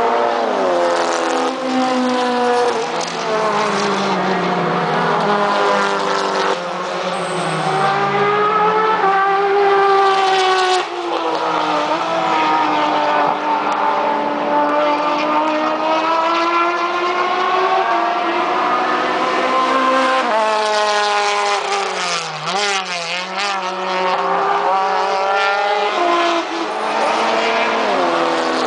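Several touring car race engines running on the circuit at once, their pitch rising and falling as they accelerate, change gear and slow for the corner. There is a quick wavering of pitch about three-quarters of the way through.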